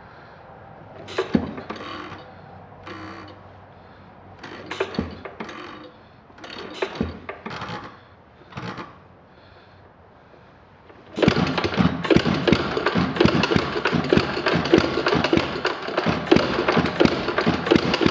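Ideal Model R 3/4 hp buzz-coil-fired hit-and-miss engine being spun over by its flywheel for a cold start, with a hand over the intake as a choke: several short bursts of sound at first. About eleven seconds in it catches and runs on with rapid firing strokes, not running the smoothest because it is very cold.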